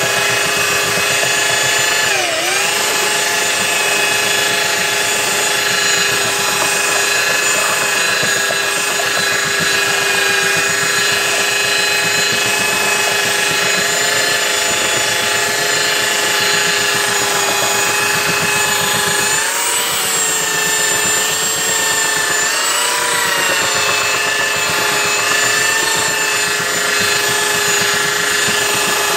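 Ryobi 3x18-inch belt sander running continuously with a steady whine as it sands the face of a log round. Its pitch dips briefly about two seconds in and sags again twice near two-thirds of the way through as it is pressed into the wood.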